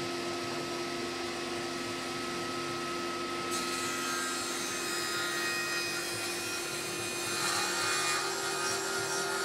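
Benchtop table saw running with a steady motor whine, then its blade ripping a birch board lengthwise from about three and a half seconds in, the cutting noise growing louder near the end.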